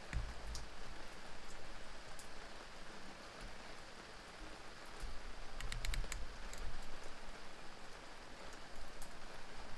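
Light clicks and taps of small metal carburetor parts and a screwdriver being handled on a towel, over a steady hiss, with a quick cluster of clicks about six seconds in.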